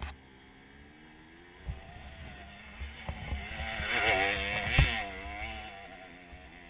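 Enduro dirt bike engine revving hard as it climbs past close by, loudest about four to five seconds in, then fading as it goes on up the hill. A few sharp thumps come with it, the loudest as it passes.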